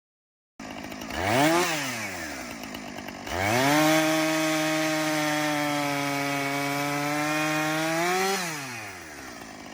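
Chainsaw revved once briefly, then held at high revs for about five seconds and let back down to idle near the end.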